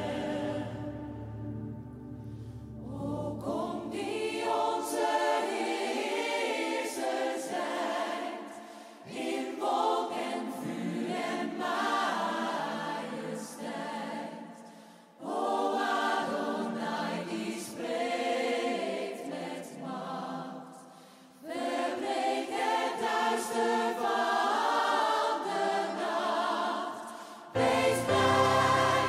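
A choir singing slowly in long phrases of about six seconds, each ending in a short breath-like dip. A deep low accompaniment sounds under the voices at the start, drops away about four seconds in and comes back near the end.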